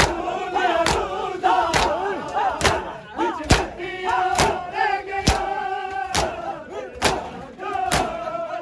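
Hand matam: a crowd of men slapping their bare chests in unison, one loud slap a little under every second. Many men's voices chant and cry out between the strikes.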